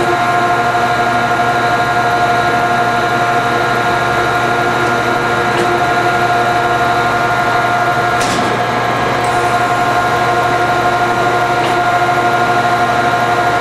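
Landis 3R hydraulic cylindrical grinder running steadily with its grinding wheel retracted after spark-out, a constant machine whine of several held tones with a few faint clicks.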